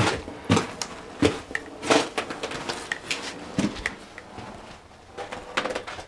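Irregular footsteps and knocks in a small wooden hut: a scatter of short thuds and clicks, with no steady rhythm.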